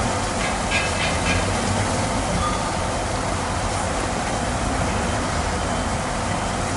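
Steady rush of high-pressure water jets spraying a Scania haul truck and the muddy ground, over a low engine rumble.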